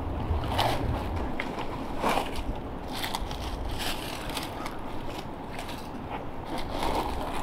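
Dry leaf litter crunching and rustling in a few short, separate crackles, the sound of people shifting on a leafy forest floor.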